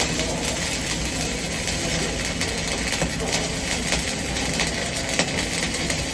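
Electric arc welding: the arc crackles and hisses steadily, with many small pops and no break.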